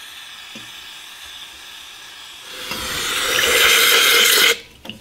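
Aerosol can of carburetor cleaner spraying through its straw nozzle onto a gummed-up carburetor needle valve and float in a steady hiss. The hiss swells much louder about halfway through and cuts off sharply near the end.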